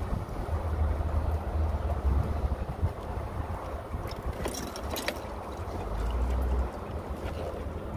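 Wind rushing and buffeting the microphone with a low rumble in an open-top, doorless Jeep as it drives along. A few faint clicks about halfway through.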